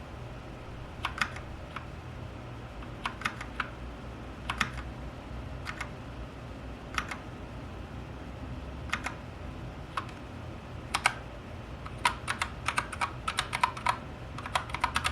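AKKO 3068 mechanical keyboard keys being pressed in short groups of two or three clicks every second or two, then a quick run of presses near the end, as the backlight modes are cycled. A steady low hum underneath.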